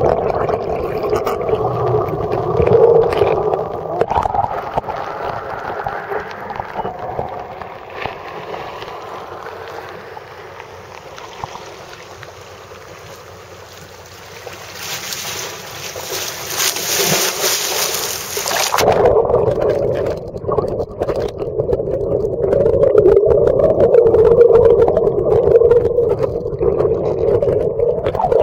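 Boat engine droning, heard underwater along with water rushing. The drone fades for several seconds in the middle while a hiss rises, then comes back suddenly near the two-thirds mark.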